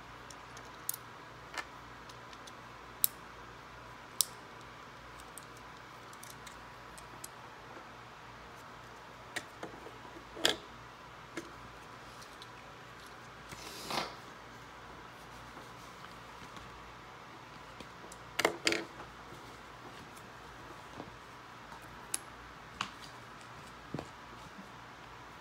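Plastic Lego bricks clicking as pieces are handled and pressed onto the model: scattered single sharp clicks, a few quick double clicks, and one short, noisier rub about halfway through, over a faint steady tone.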